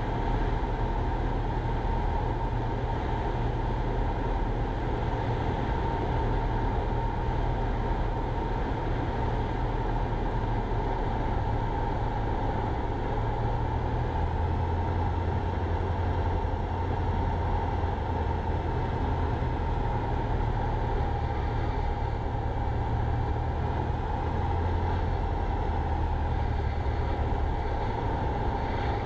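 Cessna 172 Skyhawk's piston engine and propeller running steadily, throttled back for landing, heard from inside the cabin. A deeper rumble comes in about halfway through.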